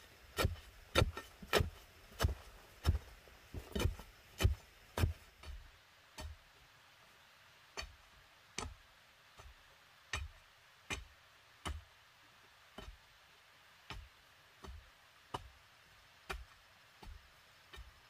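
Repeated thuds of a bar ramming loose soil down around the base of a wooden post to set it firm. About two strikes a second and louder at first, then softer and slower from about six seconds in.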